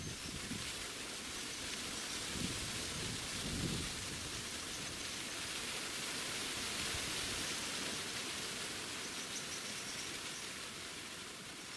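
Steady hiss of forest ambience, with a few faint, short high-pitched bird chirps now and then and a low rumble a few seconds in.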